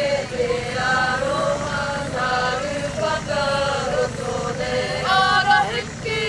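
Kapa haka group of girls and women singing a Māori waiata together in unison, their voices held on long notes that step from one pitch to the next about once a second.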